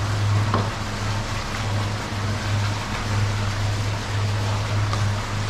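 Steady low machine hum under a constant hiss, with two faint clicks, one about half a second in and one near the end.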